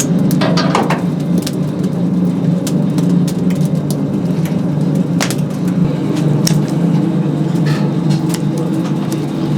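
Oak firewood crackling and popping irregularly over a steady low hum.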